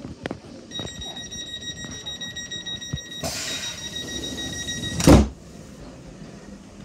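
Class 465 Networker train's door-closing warning tone sounding steadily, joined by a hiss about three seconds in. It ends with the doors shutting in a loud thump about five seconds in.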